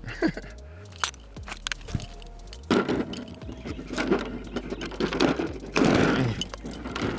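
Metal clicks and clatter of a Glock 17 pistol and its parts being handled, with two louder stretches of rattling and rubbing about three and six seconds in.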